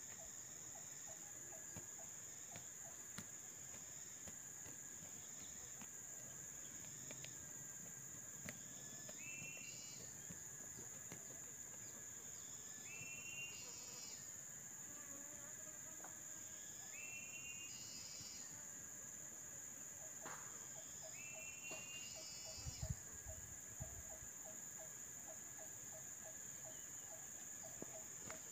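Steady high-pitched drone of crickets and other insects. A short rising call repeats several times, about four seconds apart, and a few dull thumps come about three-quarters of the way through.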